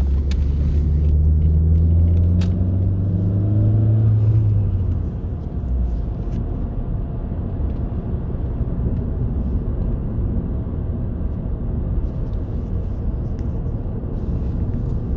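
Saab 9000 driving, heard from inside the cabin. The engine note rises steadily under acceleration for about four seconds, then drops away, leaving a steady low engine and road rumble.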